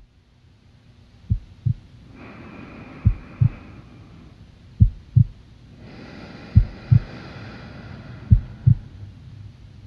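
Heartbeat sound effect: five double thumps (lub-dub), about one every 1.75 seconds. A faint high hum swells in behind it twice.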